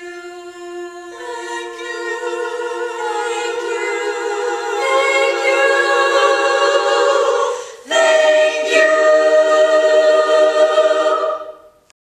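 A cappella choir singing long held chords with vibrato, voices joining one after another and swelling. A new chord starts about eight seconds in, and the singing stops near the end.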